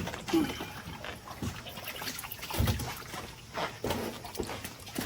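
Food-prep clatter: scattered light knocks and clicks of handling and cutting, with some splashing of water as cut offal is rinsed and soaked.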